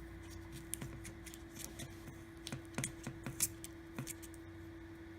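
Small irregular clicks and scrapes of a tool working along the edge of a Samsung Galaxy S6's old screen, separating the adhesive that holds it to the frame. A faint steady hum runs underneath.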